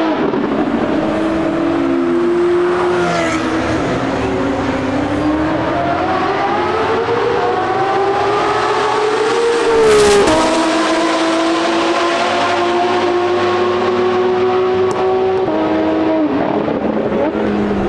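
High-performance sports car engines, led by a Porsche 992 GT3 RS flat-six on a straight-pipe exhaust, revving as they pull away down a race track. Their pitch climbs in long glides and drops at each upshift. About ten seconds in there is a sudden loud burst of noise.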